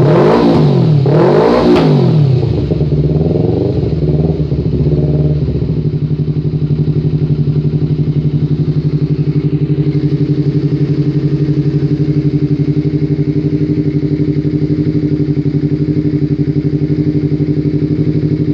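Honda CBR250RR exhaust through an aftermarket Abenk muffler: the engine is revved up twice in quick succession, falls back, and settles to a steady, evenly pulsing idle.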